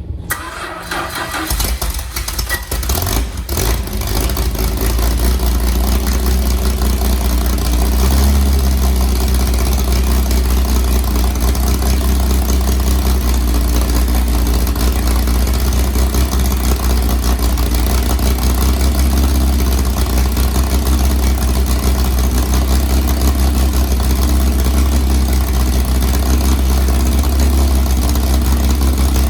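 Chrysler Hemi 265 straight-six engine cranking and catching, picking up over the first few seconds, then running at a steady idle.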